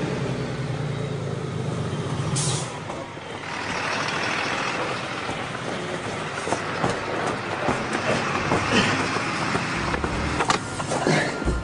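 DAF refuse truck's diesel engine running as it drives, with a short hiss of air brakes about two and a half seconds in. About a second later a louder rushing noise with scattered knocks and clicks takes over.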